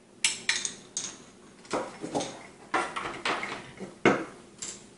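Hard clacks and knocks of a monitor-arm desk-clamp base and its cable being handled and set down on a wooden tabletop, about nine separate taps spread irregularly.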